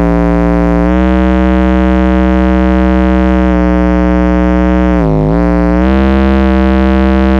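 Low bass test tone from a tone generator played loud through a car-audio subwoofer: a steady, distorted buzz rich in overtones. Its pitch dips briefly and comes back twice, about a second in and again about five seconds in.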